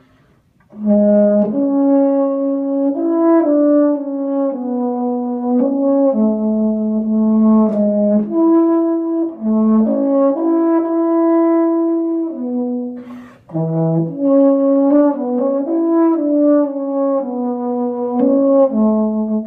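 A brass instrument in the horn's middle range playing a solo melody of steady held notes. It starts about a second in and breaks off briefly for a breath about 13 seconds in.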